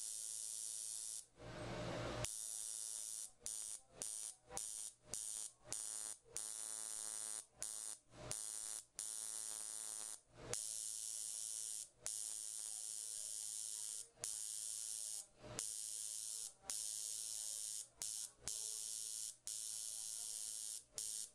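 Permanent-makeup machine buzzing at a high pitch as its needle works eyeliner pigment into the upper lash line. The buzz cuts out for a split second and restarts about twenty times.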